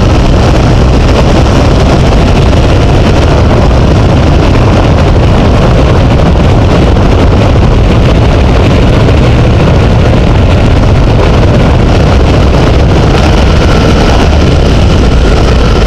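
Loud, steady wind rumble buffeting the microphone of a camera moving fast down a road, heaviest in the deep bass.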